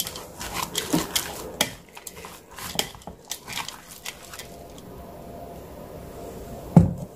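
Close-miked eating sounds: wet chewing and mouth clicks, with light taps of utensils on dishes. The clicks are busiest in the first few seconds and then thin out, and one louder low sound comes near the end.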